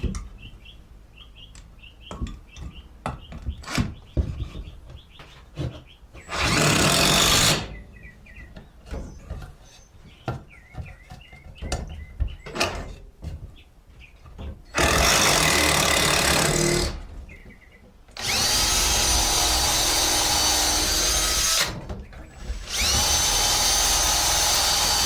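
Power drill boring into wood in four runs, the last two longer, each with a steady whine, and knocks and clicks of handling in between. The worker finds the bit getting dull.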